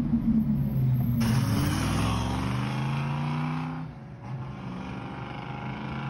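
Ferrari 550 Maranello race car's V12 engine revving, its pitch climbing for a couple of seconds, then falling back to a quieter, steady run.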